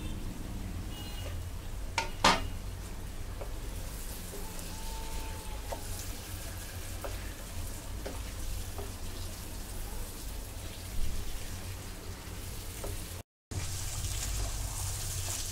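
Onion, tomato, potato and fresh herb masala sizzling in a nonstick pot while being stirred with a spatula. Two sharp knocks come about two seconds in and another around eleven seconds. The sound cuts out for a moment near the end.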